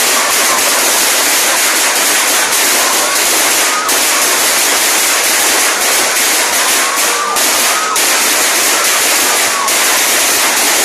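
A long string of firecrackers going off on the ground in a fast, unbroken crackle of loud cracks.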